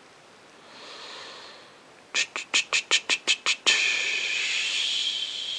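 A short burst of music or an edited-in sound effect: a quick run of about nine sharp drum-like hits, then a steady held high tone.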